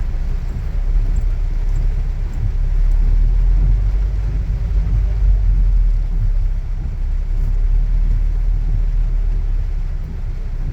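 Steady low rumble of a car being driven, its road and engine noise strongest in the bass, with no sharp events.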